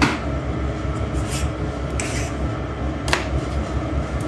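A knife cutting a ball of wholemeal soda bread dough in two on a stainless-steel worktop, followed by hands handling the dough. A few short scraping sounds, the sharpest right at the start, sit over a steady low rumble.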